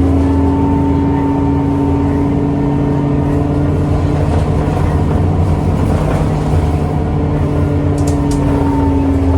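Isuzu Erga city bus diesel engine under full-throttle acceleration held in third gear, heard from inside the cabin: a loud, steady engine drone whose pitch holds and then eases down slightly near the end. Two brief faint clicks about 8 seconds in.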